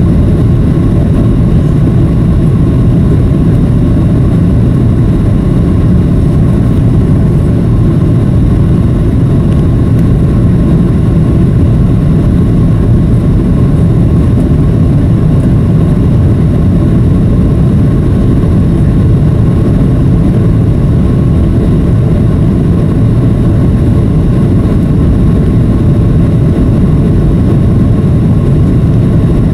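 Boeing 737 cabin noise in flight, heard from a window seat over the wing: a loud, steady low rumble of the jet engines and rushing airflow, with a faint steady hum above it.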